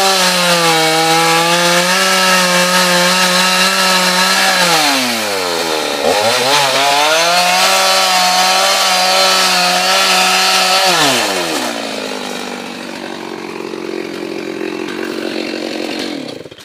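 Two-stroke chainsaw cutting through a dead, dry candeia trunk at high revs; about five seconds in the revs drop briefly and climb again as the cut goes on. Near eleven seconds the saw falls back to idle for a few seconds, and the engine stops at the very end.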